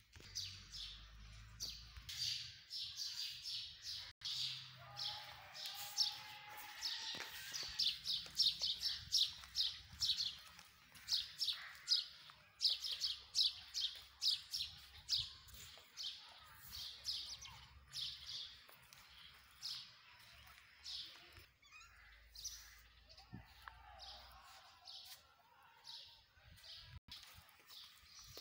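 Birds chirping outdoors: rapid, repeated short high chirps, several a second, dense at first and thinning out over the last third.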